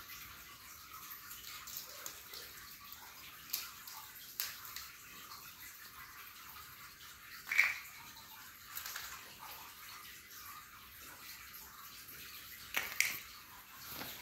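A few light clicks and knocks of plastic Lego bricks knocked about on a tiled floor by a playing kitten, over a steady hiss. The loudest knock comes about seven and a half seconds in, and two more come close together near the end.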